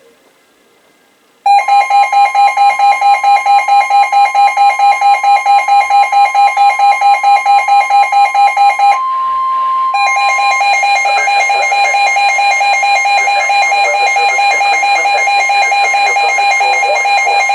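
Weather radio alert alarm: an electronic alarm beeping rapidly, about five beeps a second, starting about a second and a half in. About nine seconds in it breaks off for a second while a steady single tone sounds alone. It then comes back as a faster, almost continuous beeping.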